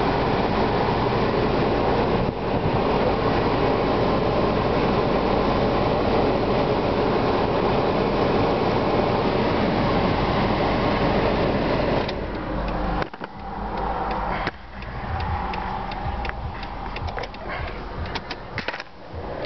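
A 2004 Toyota Highlander's air-conditioning blower runs with a loud, steady rush over the low hum of the idling engine. About twelve seconds in, the rush drops away, leaving a quieter idle with a few light clicks and knocks.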